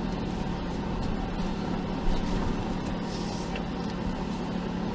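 Jeep engine running steadily as the vehicle crawls slowly over rocks, with a brief hiss about three seconds in.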